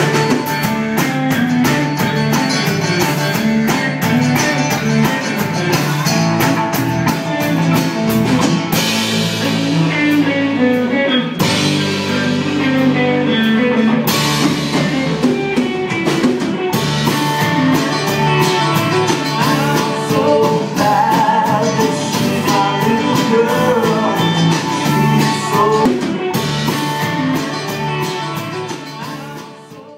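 Rock band music with electric guitar and a drum kit, fading out near the end.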